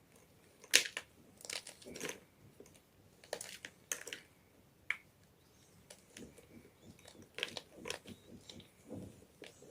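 Gym chalk crunching and crumbling in irregular sharp cracks, about a dozen of them, with softer gritty crackles between.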